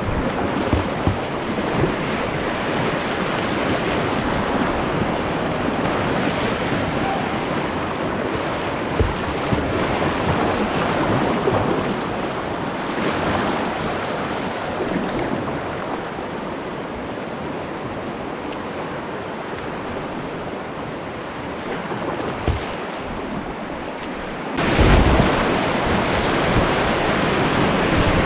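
Steady rush of whitewater river rapids. It grows louder and brighter near the end.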